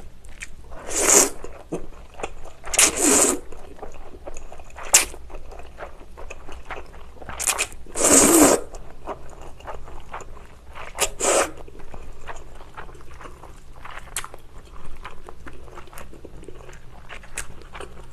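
A person slurping chewy jjolmyeon noodles from spicy broth: several loud, hissing slurps in the first twelve seconds, the longest about eight seconds in, then quieter chewing with small wet clicks.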